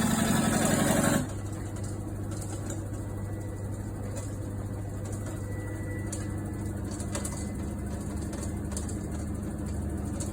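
Washing machine making an abnormal rapid rattling buzz, the kind of noise set off by something left in a pocket; it cuts off suddenly about a second in, leaving a steady low hum with a few faint ticks.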